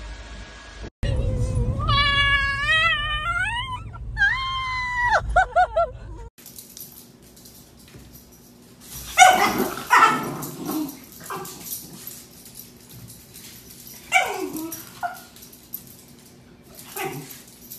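A dog giving a long, wavering, howl-like whine that rises and falls in pitch for about five seconds, starting about a second in. Later come several short, sharp yips, the loudest about nine seconds in.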